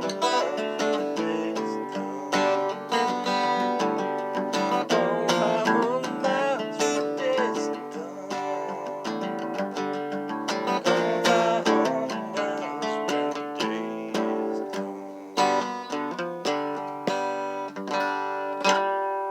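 Acoustic guitar being picked and strummed in an instrumental passage. A last chord is struck near the end and left to ring.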